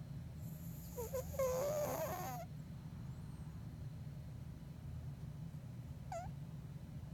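Bengal cat snoring in deep sleep: a long, wavering, squeaky whistle with a breathy hiss about half a second in, lasting about two seconds, and a short squeak about six seconds in, over a steady low rumble.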